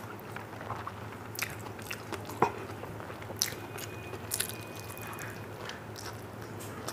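A person eating rice and dal by hand: fingers mixing food on a steel plate, then close-miked chewing and mouth smacks. Scattered small wet clicks, with one sharper click about two and a half seconds in.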